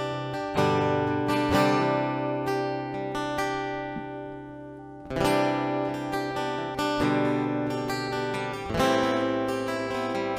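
Acoustic guitar playing the instrumental introduction to a sertanejo ballad: strummed chords left to ring, with fresh chord attacks every second or few seconds.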